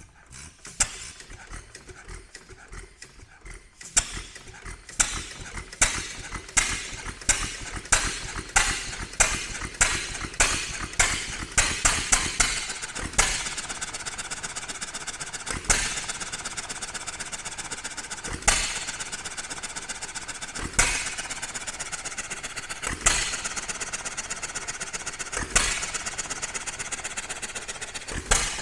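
A John Deere Type E 3 hp single-cylinder hit-and-miss engine starting. After a few seconds of light clicking it fires on every stroke, each firing closer to the last as it gathers speed. It then settles into governed hit-and-miss running, one loud firing about every two and a half seconds with a steady fast clatter as it coasts in between.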